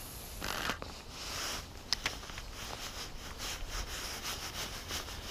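Handling noise from a spinning rod and reel: rubbing and scratching, a sharp click about two seconds in, then a run of faint light ticks.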